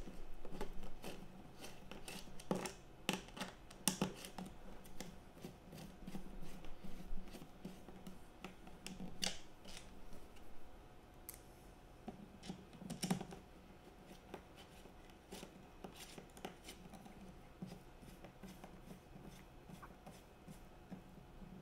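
Scattered light clicks, taps and scrapes of small plastic and metal parts being handled and fitted together by hand, with a few sharper knocks among them.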